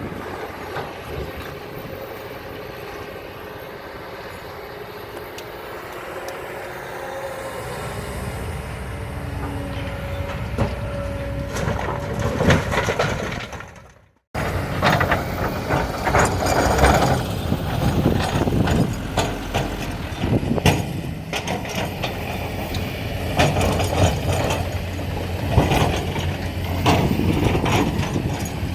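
Diesel engines of a hydraulic excavator and dump truck running at a quarry, with sand and rock clattering as they are loaded. There is an abrupt cut about halfway through, after which the engines are louder and the knocks and clatter come often.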